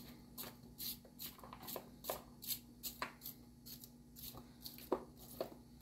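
Hands tossing sliced onions through seasoned raw steak in a plastic container: faint, soft rustling and squishing strokes, about two or three a second.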